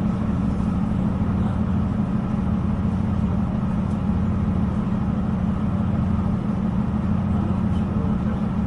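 Steady low drone of a diesel passenger train heard from inside the carriage, the underfloor engine and running gear humming evenly without change.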